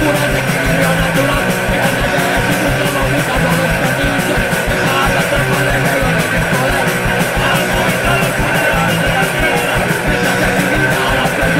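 A live rock band playing loudly: distorted electric guitars, bass and drums, with a fast, steady kick-drum beat.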